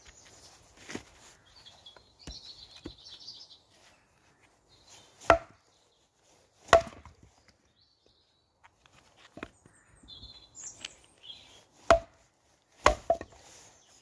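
Hultafors trekking axe chopping short lengths of branch wood on a log for firewood. About half a dozen sharp wooden strikes come at uneven intervals, with lighter taps between them.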